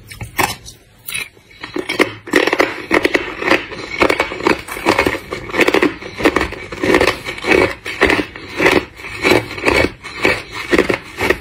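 Close-up crunching of thin, hard clear ice discs being bitten and chewed. Quiet for the first second or so, then steady crunches about two to three a second.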